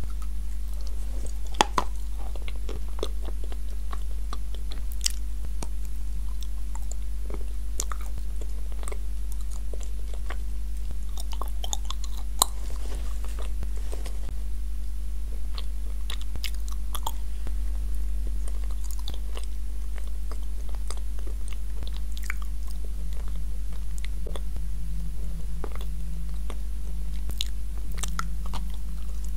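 Close-miked biting and crunching of edible-clay pieces dipped in a thick clay paste, with scattered sharp crunches and wet chewing; one sharp crunch comes about two seconds in and another near the middle. A steady low electrical hum runs underneath.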